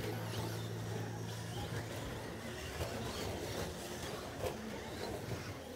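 Electric Traxxas Slash RC short-course trucks racing on an indoor carpet track: faint rising motor whines and tyre noise over a noisy hall bed. A steady low hum cuts out about a second and a half in.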